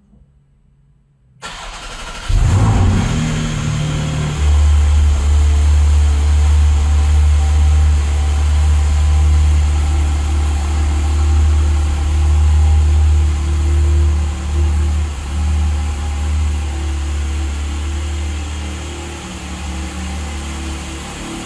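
Porsche flat-six engine starting: it cranks and catches about two seconds in, flares briefly, then settles into a steady, deep idle.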